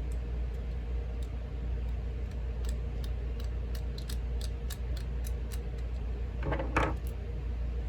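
Small metal clicks from an American Lock 1100 padlock being handled and taken apart, about three or four a second for a few seconds, then a brief louder metallic rattle near the end, over a steady low hum.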